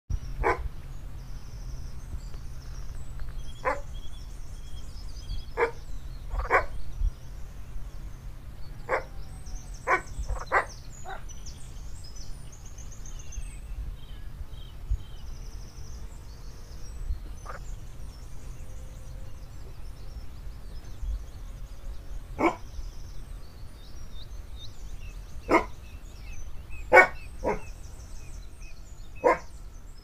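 A dog barking: about a dozen short single barks at uneven gaps, the loudest of them near the end.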